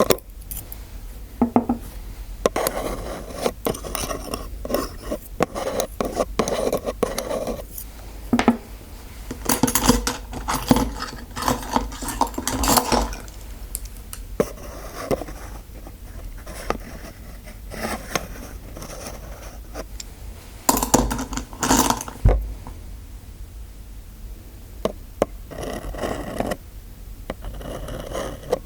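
Metal dental instruments scraping and clinking in an irregular run of scratches and small taps. A louder flurry of clicks comes about three quarters of the way through.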